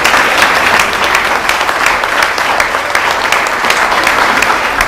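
A roomful of people applauding, many hands clapping steadily.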